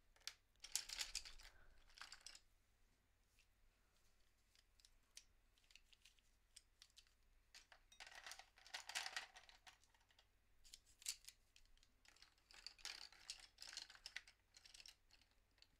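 Faint clicks and scratchy rustles in three short bouts, about a second in, around eight seconds in and near the end: Prismacolor Premier colored pencils being handled and picked out.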